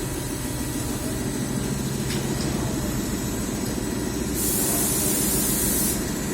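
Steady machine hum, with a loud burst of high hiss starting about four and a half seconds in and lasting about a second and a half.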